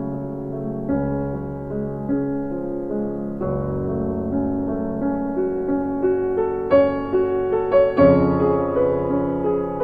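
Background piano music: slow, gentle chords with a melody, growing a little brighter and busier in the second half.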